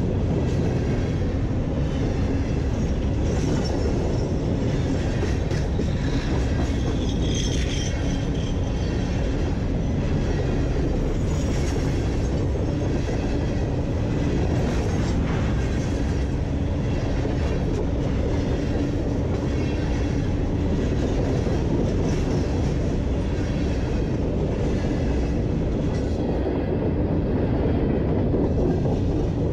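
Empty steel hopper cars of a freight train rolling past at track level, a steady rumble of wheels on rail.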